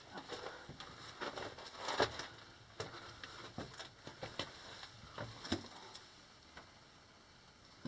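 Footsteps crunching and scuffing on loose rock rubble, with small stones clattering, in an irregular run of steps that grows quieter over the last couple of seconds.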